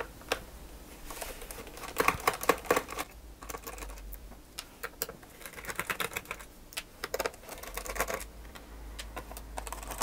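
A precision screwdriver turning out the small screws of a Lenovo laptop's plastic bottom cover: scattered light clicks and ticks, irregular and in short clusters.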